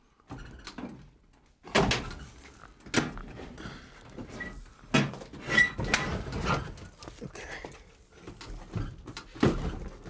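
Sheet-metal casing of a new evaporator coil knocking and scraping against the furnace as it is turned and worked into place, with several sharp thuds and clunks a few seconds apart.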